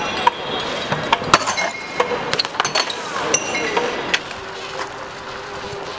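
Sharp metallic clinks and knocks from a BMX bike, irregular and several a second at times, a few ringing briefly like struck metal.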